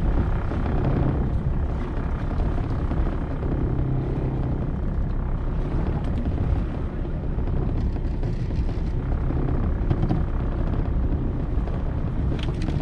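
Steady low rumble of a small fishing boat's engine idling, mixed with wind on the microphone.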